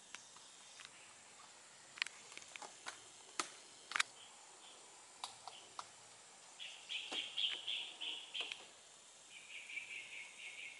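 Outdoor woodland ambience: a few sharp clicks and chips, then two bouts of rapid, high chattering calls from wildlife, each about two seconds long, the first starting a little past halfway.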